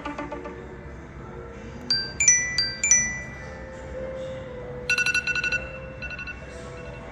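iPhone 14 Pro Max ringtones playing in short snippets: a few bell-like chime notes that ring out about two seconds in, then a quick run of rapidly repeated tones around five seconds in. A faint steady hum sits underneath.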